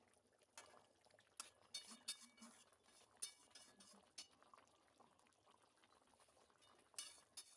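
Faint clinks and scrapes of a metal spatula against a metal kadai as it stirs a simmering fish curry gravy, with soft sloshing of the liquid. The clinks come in a cluster about two seconds in and again near the end.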